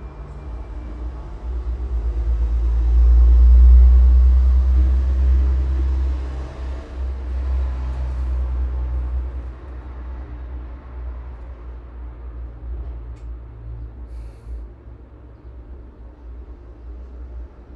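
A deep low rumble that builds over a couple of seconds, peaks, then slowly fades away.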